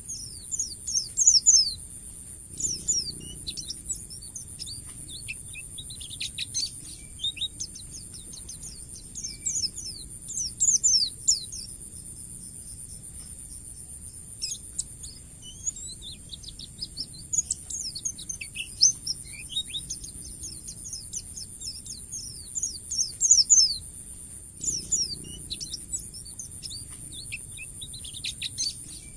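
Pleci (white-eye) singing in its ngalas style: rapid bursts of high, quick, downward-sweeping chirps with short pauses between phrases, over a steady high-pitched hiss.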